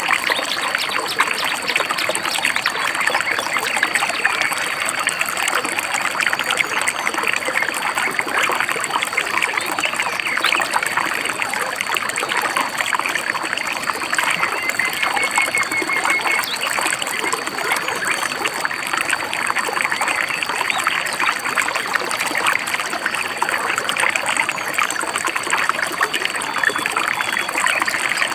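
Shallow river babbling steadily, with a short bird trill about halfway through.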